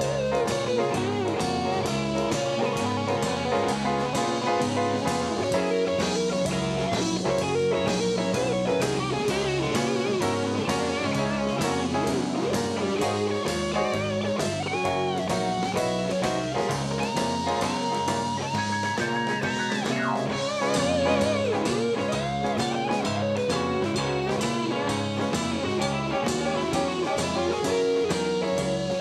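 Blues band music: an electric guitar lead with bent notes over a steady drum beat.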